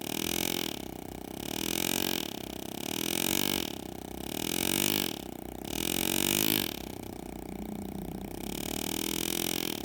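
Pneumatic air graver handpiece buzzing as it cuts shade lines into sterling silver. The buzz swells and its pitch arches up and back down with each cut, about every second and a half, then runs steadier and quieter near the end.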